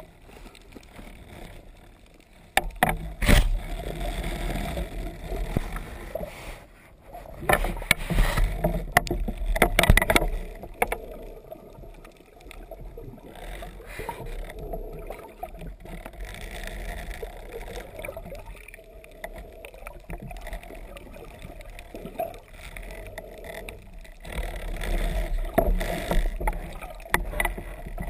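Muffled underwater water noise picked up through a GoPro's waterproof housing, uneven with a low rumble and a few sharp knocks, the loudest about three, eight and ten seconds in.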